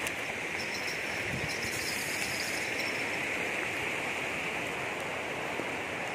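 Steady rushing of a muddy river flowing past rocks.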